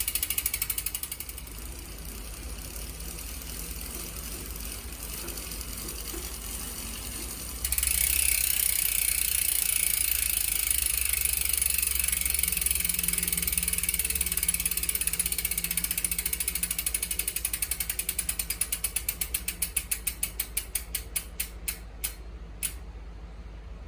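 Hope Pro II Evo bicycle freehub freewheeling: its pawls clicking against the ratchet ring in a fast buzz. About eight seconds in it suddenly gets louder, then the clicks slow into separate ticks that spread further apart and stop as the wheel coasts down.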